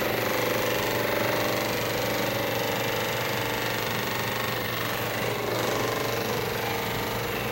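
Percussive massage gun running with a steady, rapid hammering buzz as it is worked over the body to relax the muscles.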